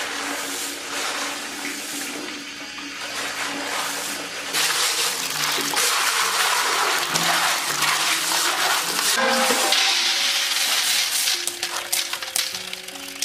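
Rushing, splashing water, louder for several seconds in the middle, over background music.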